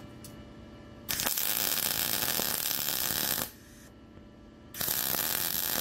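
MIG welding arc on steel, crackling steadily in two passes: the first starts about a second in and runs about two and a half seconds, the second starts near the end, with a short quiet pause between them.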